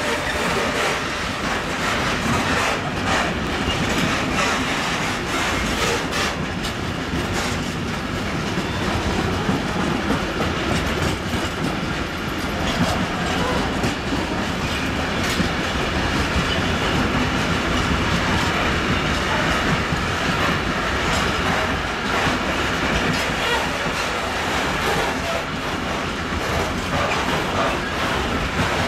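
Freight train of tank wagons rolling past, a steady loud running noise of wheels on rails with scattered wheel clicks over the track.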